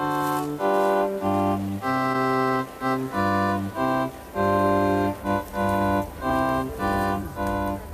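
Organ playing a slow run of held chords, each lasting about half a second to a second, with short breaks between them.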